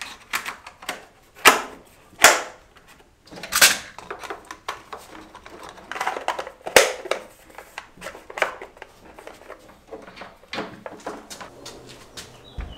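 Plastic cable trunking covers being pressed and snapped onto their channels: irregular sharp clicks and short scraping rustles, a handful of them much louder than the rest.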